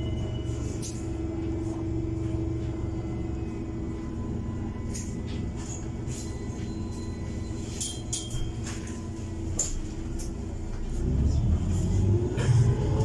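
Heuliez GX 337 CNG city bus heard from inside the passenger cabin: a steady low engine rumble with scattered clicks and rattles. About eleven seconds in, the engine pulls harder, rising in pitch and getting louder as the bus accelerates.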